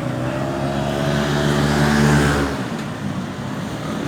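A road vehicle's engine passing close by, its note and tyre noise building to loudest about two seconds in, then dropping away suddenly.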